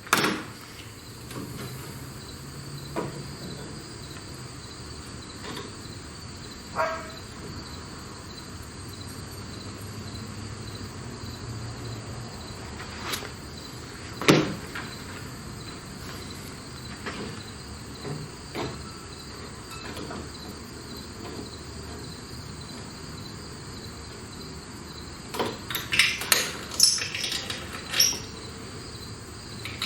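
Crickets chirping steadily, with scattered sharp knocks and clanks over them: the loudest about halfway through and a quick run of them near the end.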